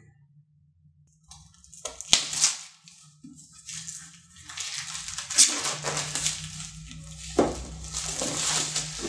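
Plastic shrink wrap being torn and peeled off a cardboard board-game box, crinkling irregularly, with a sharp snap about two seconds in.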